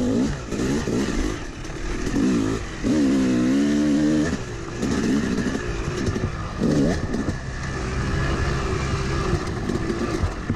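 Yamaha YZ250 two-stroke dirt bike engine under way on the trail, revving up and down with the throttle: a longer held rev about three seconds in, a sharp blip near the middle, then a steadier stretch.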